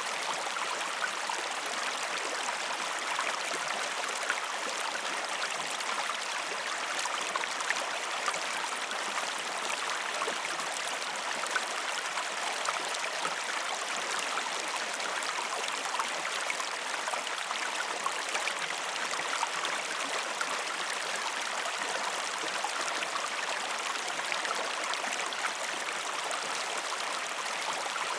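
River water flowing over stones: a steady rushing and babbling with small splashes throughout.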